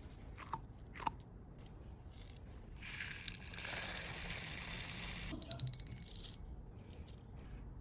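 Squishy stress toy being squeezed and handled: a couple of light clicks, then a loud crinkly hiss of the toy's skin for about two and a half seconds, ending in a quick run of crackling ticks as the squeeze lets go.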